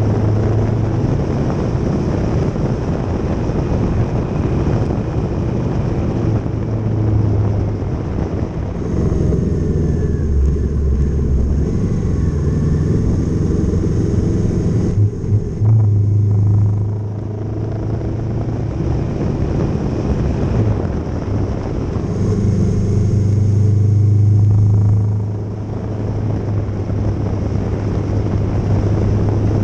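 Kawasaki Z650 motorcycle engine running under way, heard from a camera mounted on the bike. The engine note shifts several times: it drops lower about a third of the way in, dips briefly about halfway, then runs louder for a few seconds before falling away near the end.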